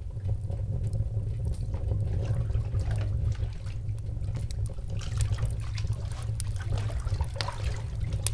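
Bathwater trickling and splashing in small irregular drips over a steady low hum.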